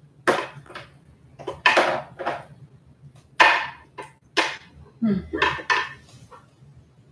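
Hard objects clattering and knocking as they are handled and set down during tidying: a quick, uneven string of about a dozen sharp clanks, in loose groups.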